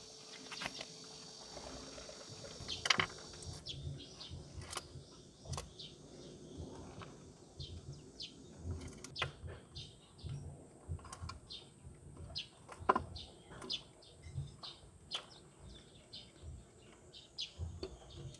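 Small birds chirping, short high calls several times a second, over a light hiss. Scattered soft knocks come from an oriental turtle dove pecking at seeds and peanuts on a metal window-sill track, the loudest about two-thirds of the way in.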